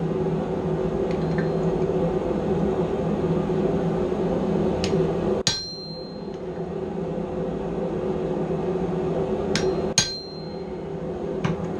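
Hand hammer striking a handled chisel to cut claws into hot steel on an anvil: a few scattered blows, the two hardest about five and a half and ten seconds in, each ringing briefly. A steady hum runs underneath.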